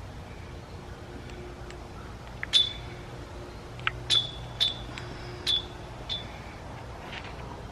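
Half a dozen sharp metallic clinks at irregular spacing, each with a short bright ring, as small metal objects are handled and set down. The loudest comes about two and a half seconds in, and there is a faint steady hum underneath.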